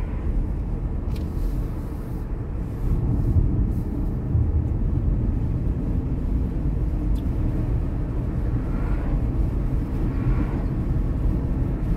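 Steady low rumble of a car driving along a road, heard from inside the cabin, getting a little louder about three seconds in.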